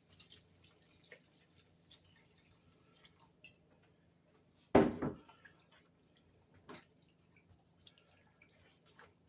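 Water being added to a skillet of onions and browned flour roux to make gravy, heard as scattered drips and small splashes, with one louder sound about five seconds in.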